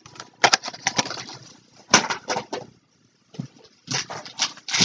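Packaged toys and a cardboard shipping box being handled and rummaged through: rustling with small knocks, in three short bursts.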